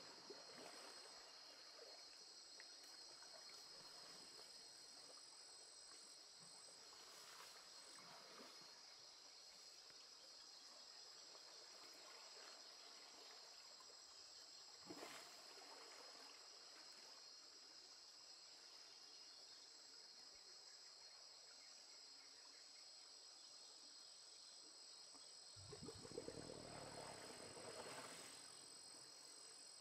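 Faint, steady chorus of forest insects: a few high, shrill trilling notes held unbroken throughout. Near the end a louder rush of noise swells for about three seconds.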